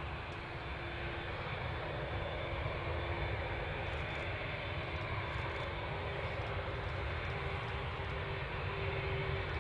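Jet airliner engines running, a steady rumble with a faint hum, growing a little louder toward the end.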